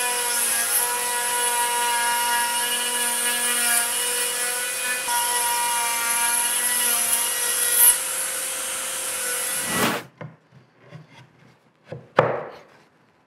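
Wood router on a PantoRouter joinery machine running and cutting a tenon in hard eucalyptus: a steady motor whine with the noise of the bit biting into the wood. It cuts off sharply about ten seconds in, and a single sharp knock follows near the end.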